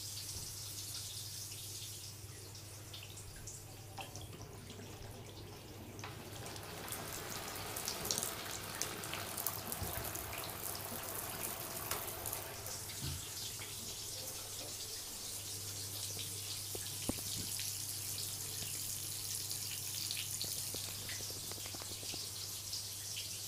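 Water running from a bath tap into the tub, with a few small drips and clicks, over a steady low hum.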